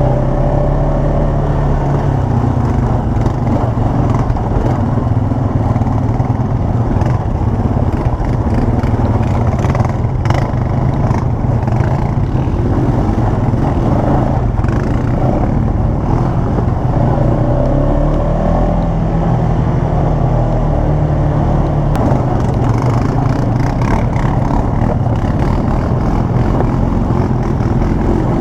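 ATV engine running as the quad is ridden off-road, its pitch rising and falling with the throttle, with scattered rattles and knocks.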